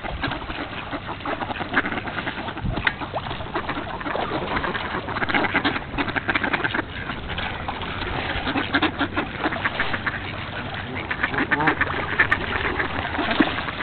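A large flock of mallards quacking over one another in a constant, dense chatter as they crowd in to be fed bread.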